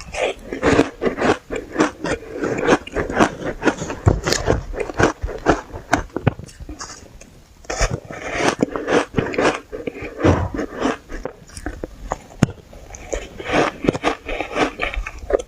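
Close-up biting and chewing of powdery shaved ice: rapid, dense crunches, with a short lull a little before halfway before the crunching resumes.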